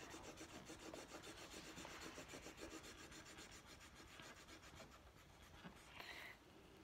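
Felt-tip marker scribbling on shiny coloring-book paper: faint, fast back-and-forth strokes in a quick even rhythm, with a brief louder scrape about six seconds in.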